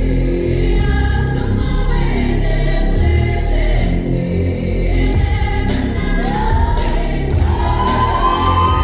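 Music with choir-like singing over a steady low bass; in the last few seconds a voice sings long lines that rise and fall.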